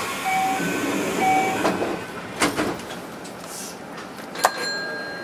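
Hanshin electric train pulling away from a station, heard from the cab: a clunk, two short beeps about a second apart and a few knocks. About four and a half seconds in, a sharp click is followed by a steady high tone.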